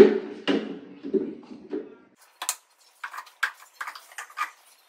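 Knocks and light plastic clicks as the lid of a countertop blender's jar is handled and taken off, with the motor stopped: a few knocks in the first two seconds, then a sharp click and a quick run of taps.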